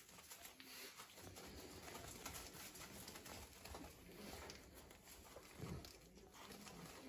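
Faint soft coo-like vocalizing from five-week-old French Bulldog puppies, with light scuffling.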